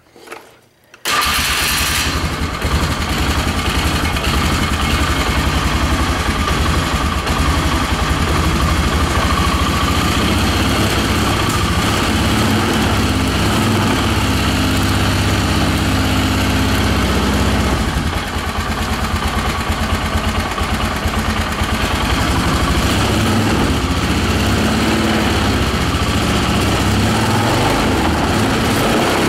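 Polaris engine starting about a second in and then idling steadily, with a freshly oiled washable air filter just fitted; the level dips briefly once about two-thirds of the way through.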